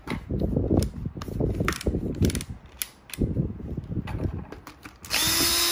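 Cordless drill-driver on a circuit-breaker terminal screw: clicking and ratcheting with handling knocks, then near the end the motor runs steadily for about a second and a half.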